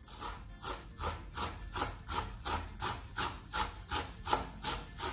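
Knife chopping fresh dill and parsley on a wooden cutting board, a steady run of blade strikes at about three a second.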